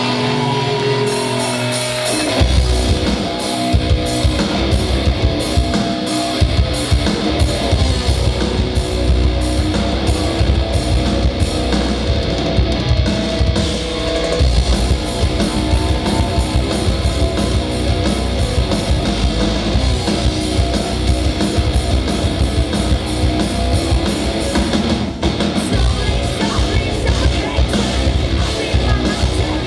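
Metal band playing live: sustained notes at first, then about two seconds in the full band comes in with distorted guitars, bass and drums.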